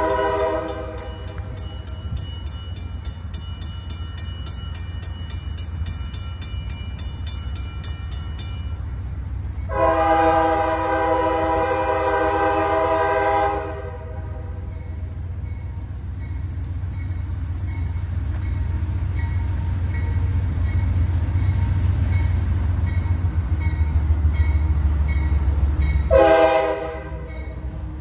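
GE C40-9W diesel locomotive approaching, sounding its air horn in a grade-crossing pattern: the end of one long blast at the start, a long blast of about four seconds around ten seconds in, and a short blast near the end. Under the horn the locomotive's low rumble grows louder as it nears.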